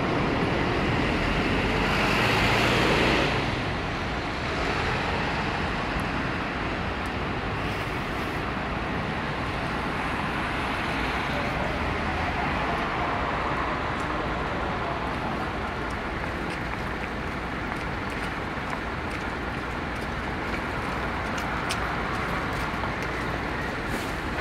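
Road traffic noise, a steady hum of vehicles on a street, with one vehicle passing close by and louder between about two and three and a half seconds in.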